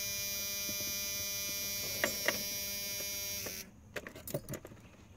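A steady electrical buzz in a Dodge Cummins pickup's cab with the ignition switched on, with two sharp clicks about two seconds in. The buzz cuts off suddenly about three and a half seconds in, and a few light clicks follow.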